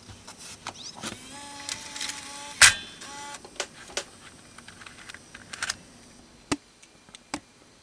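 The MiniDV tape mechanism of a Canon XH A1 HDV camcorder ejecting a cassette: a motor whirs for about a second, then a loud clack as the cassette holder pops up, followed by a few lighter clicks as the tape is handled and lifted out.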